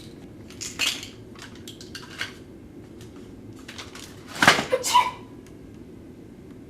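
A few light knocks and clinks of hard objects, the loudest about four and a half seconds in, one of them ringing briefly.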